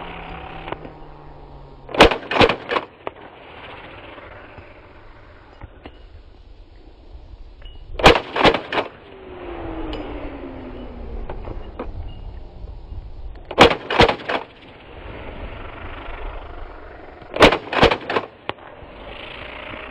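Suppressed Vulkan-M bullpup AK-pattern rifle firing reduced-velocity cartridges in four quick strings of three or four shots each, a few seconds apart.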